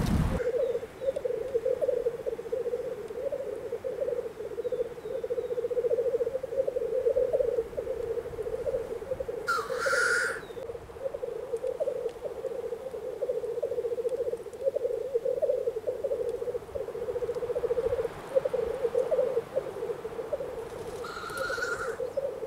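Male black grouse lekking: a continuous low bubbling, cooing song runs throughout. It is broken by a loud, harsh hiss about ten seconds in and a shorter one near the end.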